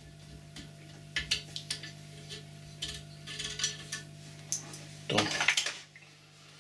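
Small metal parts clicking and clinking as a bolt and bearing are handled and fitted onto a steel arm by hand, with a louder clatter of metal tools on the bench about five seconds in. A steady low hum runs underneath.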